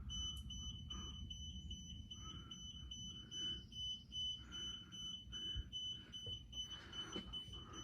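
Ryobi garage door opener beeping a rapid run of high-pitched beeps, about three a second, that stops shortly before the end. This is the opener's fault response to a remote press: it beeps about 22 times and resets instead of moving the door.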